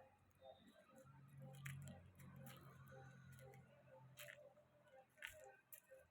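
Near silence, with a faint low hum through the middle and a few soft scattered clicks.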